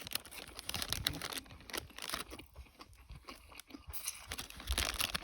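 Close-up chewing of crunchy food: a run of crisp, irregular crunches as it is bitten and chewed.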